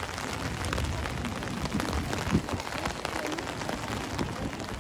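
Steady rain, with many drops tapping on an umbrella held over the microphone.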